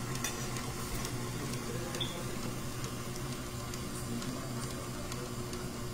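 A steady low hum with a few faint light ticks.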